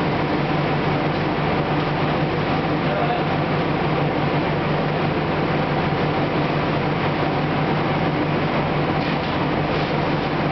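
Powder coating booth running: a steady low hum with an even airy rush from the booth's extraction fan and the air-fed powder spray gun, unchanging throughout.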